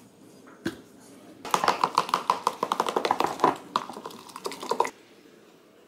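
Food being stirred quickly in a plastic cup: a fast run of clicks and scrapes for about three and a half seconds, starting about a second and a half in.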